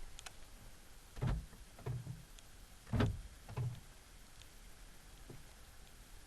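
Car door lock clunking: four dull thumps in two pairs.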